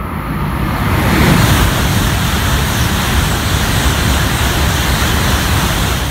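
E5 series Shinkansen passing through a station at high speed without stopping: a loud rush of air and wheel noise that builds over the first second, holds steady while the cars stream past, then drops suddenly at the end.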